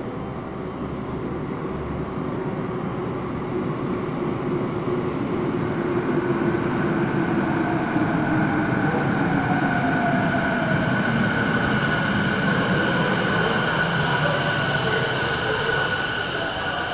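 Electric commuter train running at a station platform: a steady whine from the traction motors and rolling noise that grow slowly louder, with a tone that glides midway.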